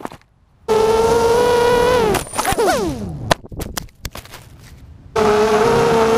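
Brushless motors of a ZMR250 racing quadcopter whining at a steady pitch, then sliding down in pitch as they wind down, followed by several sharp knocks as the quad crashes and tumbles. About five seconds in the motor whine starts up again at a steady pitch.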